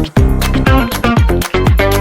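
Background dance music with a steady beat: electronic kick drum about twice a second under synth and bass notes.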